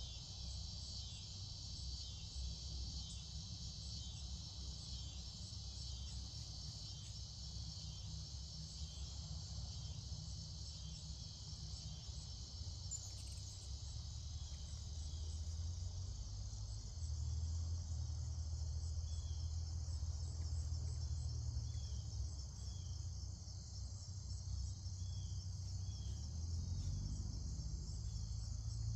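Insects, crickets among them, trilling in a steady high chorus, with a low rumble underneath that grows louder about halfway through. A few short chirps come in over the second half.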